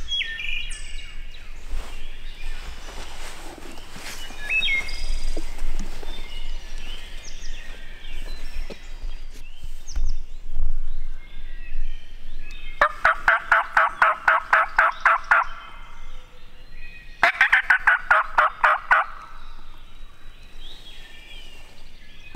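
Turkey calling: two loud runs of rapid, evenly spaced notes. The first starts about 13 seconds in and lasts nearly three seconds; the second follows a second and a half later and is shorter.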